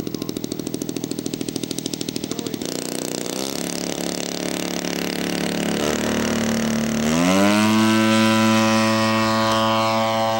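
Radio-controlled scale P-51 Mustang's engine pulsing evenly at low throttle. About seven seconds in it is throttled up for the takeoff run, its pitch rising quickly and then holding steady at full power.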